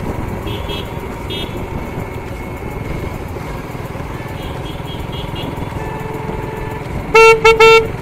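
Steady engine and wind noise of a vehicle on the move. Near the end, a horn sounds three quick toots, by far the loudest thing heard.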